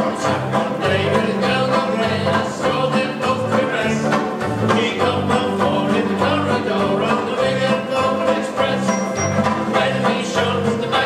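Three banjo ukuleles strummed in a quick, steady rhythm, with voices singing along.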